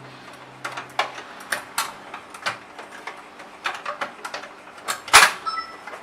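Irregular clicks and knocks of a hotel door lock's plate being handled and set against the door, the loudest knock about five seconds in, followed by a brief ringing.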